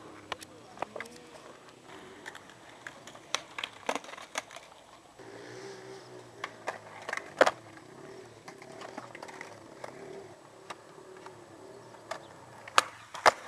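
Skateboard tricks: sharp board pops and knocks on the ground, scattered irregularly. The loudest impact comes about seven seconds in, and two more strong ones come close together near the end.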